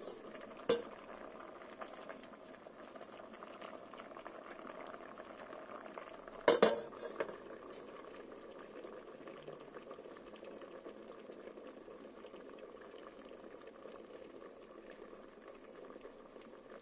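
A pot of tagliatelle boiling steadily in water, with a sharp clink of the glass lid or fork against the pot about a second in and a louder cluster of clinks about six to seven seconds in.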